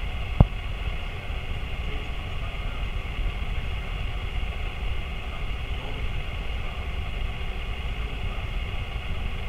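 Room tone of a crowded meeting hall: a steady low rumble with a faint hiss and no clear voices, broken by one sharp click about half a second in.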